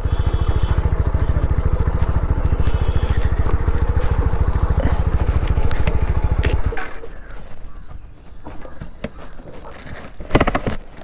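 TVS Apache RTR 160 BS6's single-cylinder engine running at low revs as the motorcycle rolls slowly over a dirt track, then cut off abruptly about two-thirds of the way through. Afterwards come a few light knocks and a louder clunk near the end.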